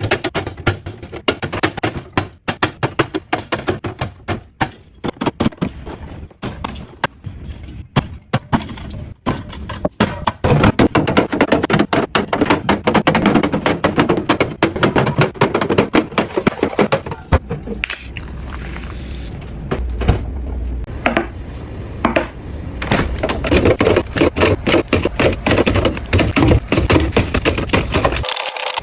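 Containers and packages being set down and arranged in a refrigerator: a quick, irregular clatter of knocks, taps and clinks, with a hissing rustle partway through.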